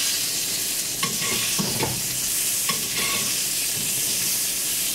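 Foaming butter with herbs and garlic sizzling in a hot black pan as a spoon bastes a piece of meat. The spoon clinks against the pan a few times.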